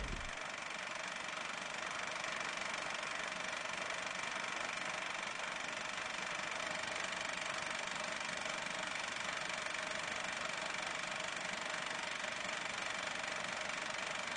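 A steady, unchanging mechanical whirr with a hiss, without rhythm or change in pitch.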